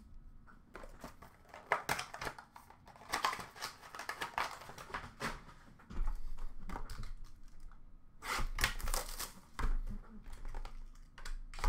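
Packaging crinkling and tearing in irregular bursts as a sealed trading card box is handled and opened.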